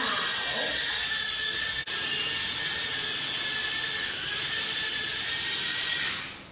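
Toy racing drone's small motors and propellers whirring with a steady high-pitched whine, fading out near the end.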